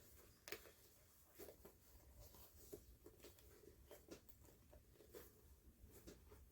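Faint, irregular scratching and clicking of a zipper being worked along a soft fabric makeup bag.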